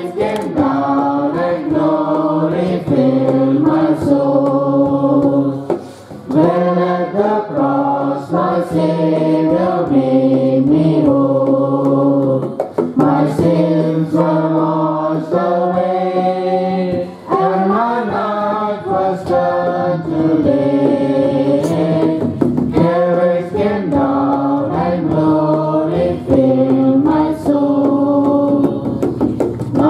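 Voices singing a gospel worship song, the melody moving in held notes with short pauses between phrases.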